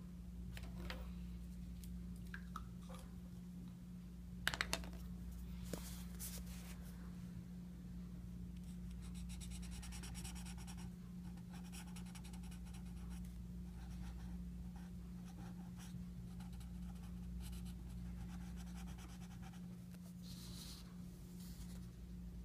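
Marker tip scratching on a paper sticker label in quick repeated strokes as a drawing is coloured in, over a steady low hum. A few sharp clicks come about four and a half seconds in.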